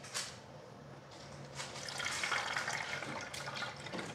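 Fresh carrot juice being poured from a plastic jug through a small strainer into a glass bottle. There is a light knock at the very start; about a second and a half in, a steady splashing trickle of liquid begins.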